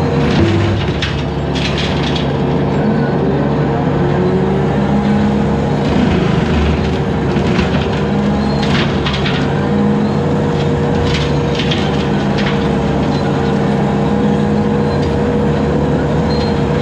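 Bobcat 873 skid steer running hard with its 72-inch hydraulic brush cutter spinning, a steady whine over the engine's drone. Brush and small saplings crack and snap in several bursts as the cutter chews through them.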